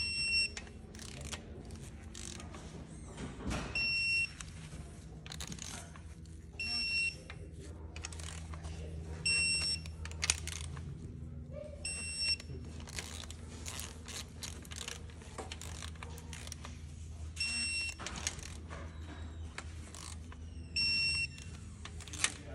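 Digital torque wrench beeping as each timing-chain guide bolt reaches its set torque: seven short high beeps a few seconds apart. Tool clicks are heard between the beeps.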